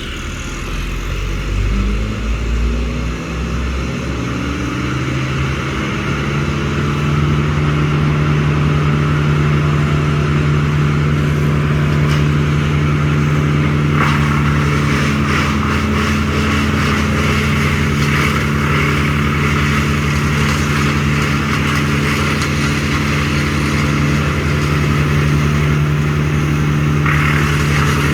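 An engine speeding up over the first few seconds, then running steadily at a constant speed.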